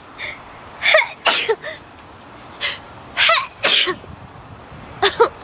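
A person sneezing several times in quick succession. Each sneeze is a short voiced burst, with quieter breaths in between.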